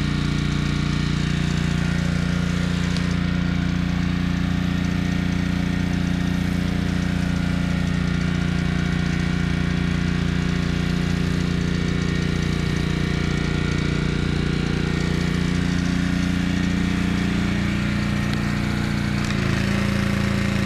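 Gas pressure washer engine running steadily under load, with the hiss of the spray over it.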